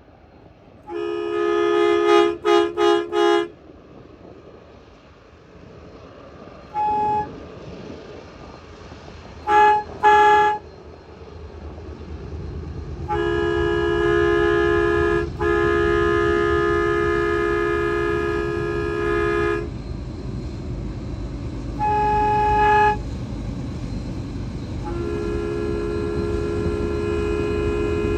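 Union Pacific diesel locomotive's multi-note air horn sounding a chord in a string of short toots and long blasts: three quick toots early, a few short ones, then long blasts in the second half. Underneath, the low rumble of the diesel engines grows louder from about halfway through as the locomotives pass.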